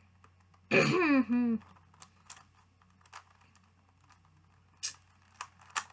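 Scattered clicks of a megaminx puzzle's layers being turned by hand, with a short burst of voice about a second in.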